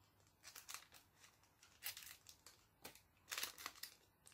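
Faint crinkling and rustling of a small candy package being worked open by hand, in short scattered bursts.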